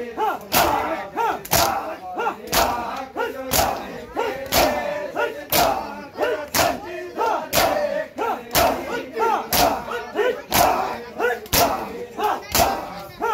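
A crowd of men doing matam, slapping their bare chests with open hands in unison about once a second. Between the strikes the men shout and chant together.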